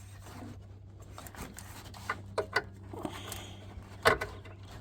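Hands working around the horn wiring, with light rustling and a few small plastic-and-metal clicks and knocks. The sharpest click comes about four seconds in, over a steady low hum.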